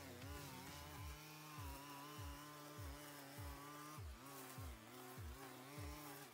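Stihl FS 90 R string trimmer's engine running at high revs as it cuts weeds, its pitch wavering slightly as the throttle and load change. A low thud repeats about every 0.6 s underneath.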